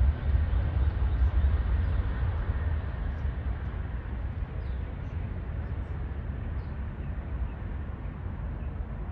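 Jet airliner's engine rumble, fading steadily as a landing plane moves away.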